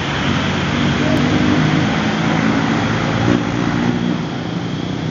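Road traffic: vehicle engines running steadily over an even hiss of traffic noise.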